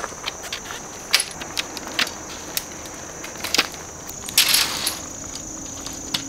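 Metal poles of a Retros octagonal Hub Shelter frame clicking and knocking as they are fitted into the central hub, a sharp click every half second or so, with a brief scraping rustle about four and a half seconds in. A steady high insect trill runs underneath.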